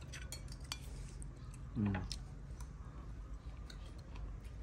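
Metal spoon clicking and scraping against a ceramic plate a few times in the first second, then one short murmured vocal sound about two seconds in, over a faint steady low hum.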